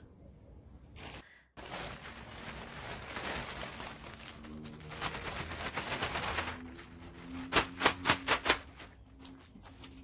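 Bagged compost pouring out of a plastic sack onto a soil heap on a plastic tarp: a steady rustling hiss for several seconds, then a quick run of about half a dozen sharp crackles near the end.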